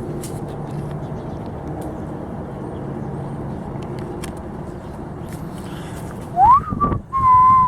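Steady outdoor background noise with a low hum, then near the end a person whistles: a quick rising note followed by a long held note.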